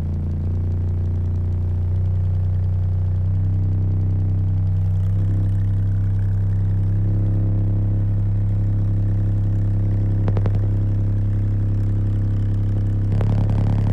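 Skar 18-inch and Toro 15- and 12-inch car subwoofers playing a loud bass test tone, heard from inside the car. The deep hum holds steady and steps up in pitch a few times, with a buzzing rattle about ten seconds in and again near the end.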